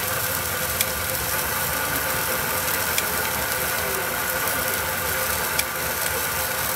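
Rice cake extruding machine running steadily on its motor, with a few light ticks.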